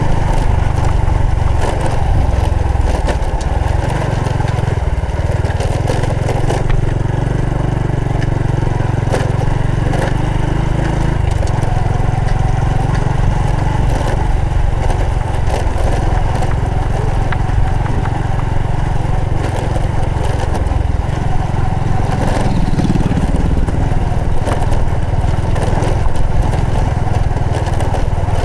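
Honda Supra X 125 FI's single-cylinder four-stroke engine running as the motorcycle is ridden. Its pitch shifts a few times with throttle, around 4, 11 and 22 seconds in.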